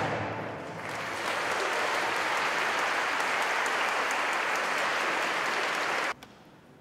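Audience applauding in a large cathedral, steady, even clapping, as the choir's final chord dies away in the first second. The applause cuts off abruptly near the end.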